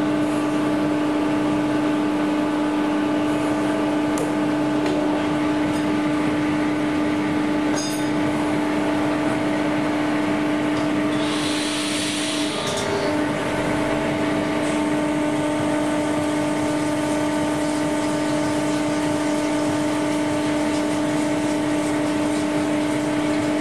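Hardinge Superslant CNC lathe running under its Siemens spindle and axis drives, giving a steady whine made of several held tones. About halfway there is a brief hiss, and the main tone then steps slightly in pitch.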